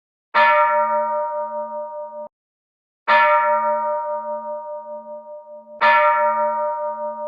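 A temple bell struck three times, about three seconds apart, each strike ringing on with a slowly wavering hum and cut off abruptly before the next.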